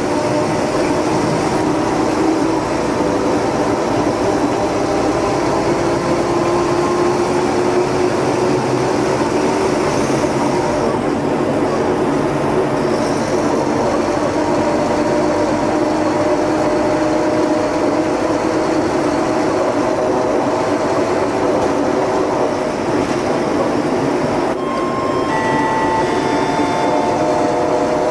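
Cabin noise of a Scania K320UA articulated city bus under way: a steady mix of engine, driveline and road noise, with a whine that slowly rises in pitch as the bus gathers speed. In the last few seconds a whine steps down in pitch.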